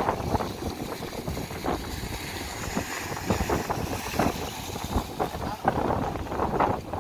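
Wind buffeting the microphone in uneven gusts, over small waves washing up the sand.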